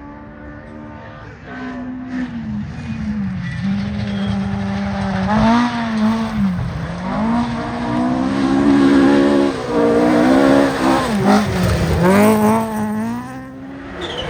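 Rally car engine revving hard, its pitch climbing and then dropping sharply several times as the driver shifts gear or lifts, while the car comes closer, growing louder from about two seconds in and falling away near the end.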